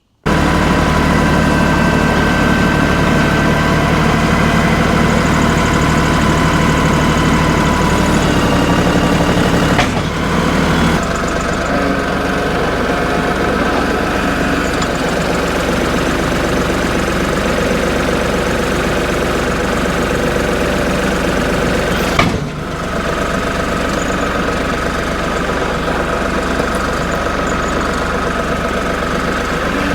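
A portable sawmill's engine running steadily and loudly. The sound breaks off sharply and shifts a little about ten seconds in and again about twenty-two seconds in.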